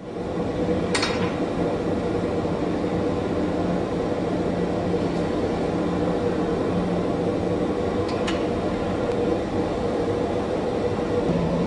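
Steady roar and hum of a glassblowing furnace and its ventilation, with two faint clicks, about a second in and about eight seconds in.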